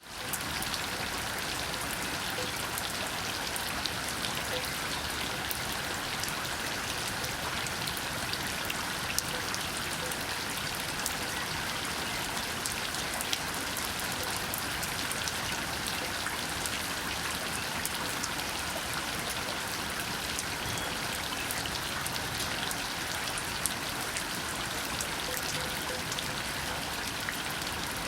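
Steady rain falling, an even hiss of many drops with scattered louder individual drop ticks throughout.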